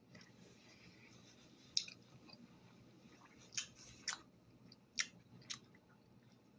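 Close-up chewing and mouth sounds of someone eating fresh fruit, with about five short, sharp wet clicks from the second second onward.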